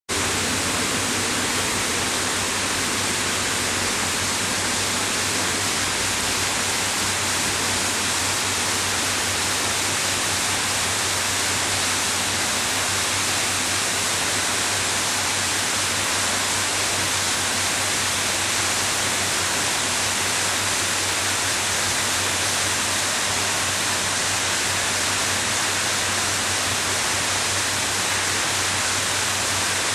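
Steady, unbroken rushing noise of running water in a koi holding tank, with a low hum underneath.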